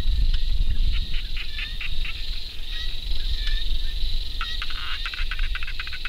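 Steady high-pitched drone of insects, with several bursts of rapid clicking calls over a constant low rumble.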